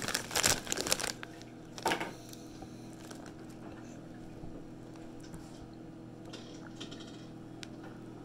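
Plastic-foil chip bag crinkling as it is handled during the first second, then one more brief rustle about two seconds in. After that there is only a quiet, low steady hum.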